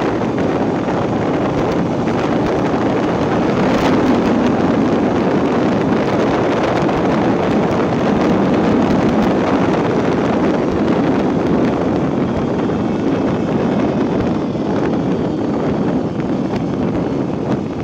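Steady wind rush on the microphone while riding a Vespa PX scooter converted to a Suzuki Nex automatic engine, with the engine and tyre noise running underneath.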